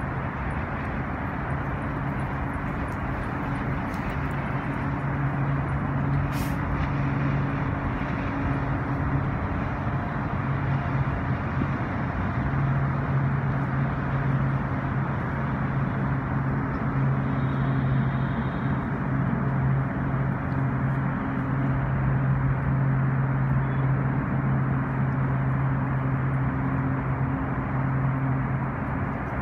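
A steady low engine drone over a constant wash of outdoor noise, with one sharp click about six seconds in.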